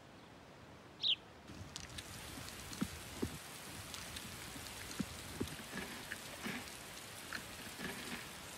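Forest ambience: a single short falling bird chirp about a second in, then a soft hiss with a steady patter of small ticks and occasional low knocks.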